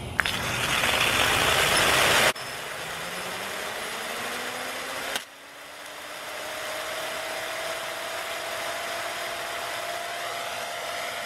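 A 3D-printed micro Pelton turbine started on a hose-fed water jet: a loud rush of water for about two seconds that cuts off abruptly, then the turbine spinning up with a rising whine that levels off into a steady hum over the hiss of spraying water. It is running without a load.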